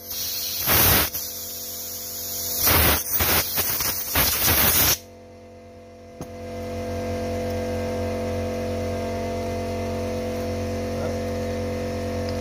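Compressed air hissing in several short, loud blasts as the ports of a brake booster pump are blown out, stopping abruptly about five seconds in. About a second later a steady hum with several fixed tones takes over.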